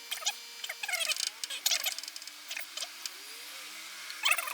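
Birds chirping and twittering in many short, quick notes, some sliding down in pitch, with a few light clicks among them.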